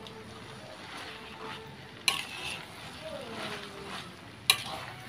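Yellow noodles sizzling in a hot metal wok as they are stirred and tossed with a metal spatula, with two sharp clanks of the spatula against the wok, about two seconds in and again near the end.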